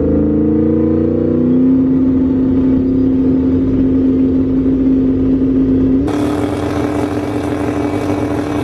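Turbocharged 5.0 Coyote V8 of a 1700 hp Mustang GT held at steady revs on the drag-strip starting line, heard inside the cabin. The engine note climbs a little in the first second or two and then holds. About six seconds in, the sound switches to an outside recording of the same engine, still holding steady revs.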